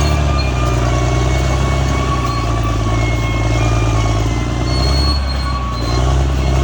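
Caterpillar D6R XL crawler bulldozer's diesel engine running steadily, with a rapid fine clatter and a thin high whine over it.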